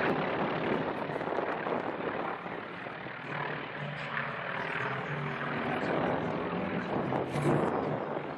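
Engine drone of a pair of small aerobatic airplanes flying a display overhead, steady with slight rises and falls as they climb and turn.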